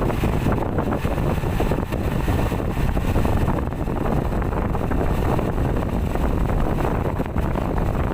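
Wind buffeting the microphone over the steady rumble of engines and road noise from moving traffic, with no horn sounding.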